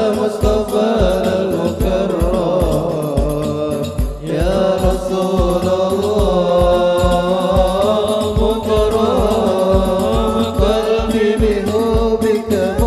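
A man's solo voice sings an Arabic sholawat in long, ornamented held notes, over a hadroh frame-drum ensemble keeping a steady low beat.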